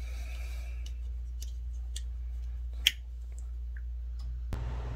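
Scattered small clicks and mouth pops, one sharper near three seconds in, as a man puffs on a Stanwell tobacco pipe, over a steady low electrical hum. Near the end the background hiss steps up suddenly.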